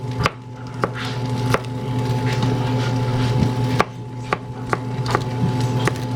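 Kitchen knife chopping green onions on a wooden cutting board: single sharp chops at an irregular pace, about ten in all.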